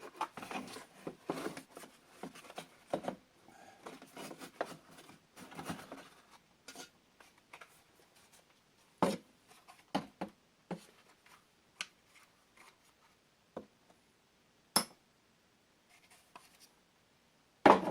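Hands working on a leaf blower during disassembly: irregular small clicks, scrapes and rubbing of plastic and metal parts, with a few sharper knocks about nine, ten and fifteen seconds in.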